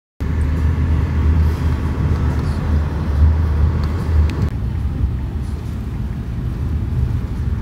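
A car driving along a concrete road, with a steady low rumble of engine and tyres. About four and a half seconds in, the higher hiss drops away and the sound becomes the duller noise heard inside the car's cabin.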